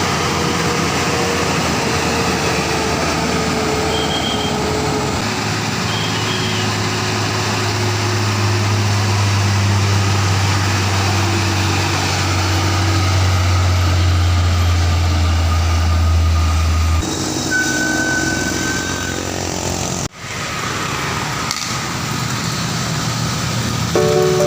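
Heavy diesel road vehicles passing close by, with engine rumble and road noise. A deep engine drone builds about a fifth of the way in and stops abruptly about two-thirds of the way through.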